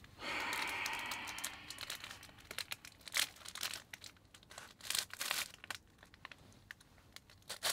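Plastic wrapper of a snack stick being torn open and crinkled: a long tearing rustle at first, then scattered sharp crackles as the wrapper is handled and peeled back.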